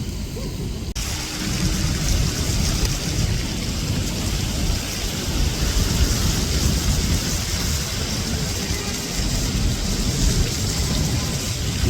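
Steady rain hissing, with a low rumble underneath; the hiss turns suddenly brighter about a second in.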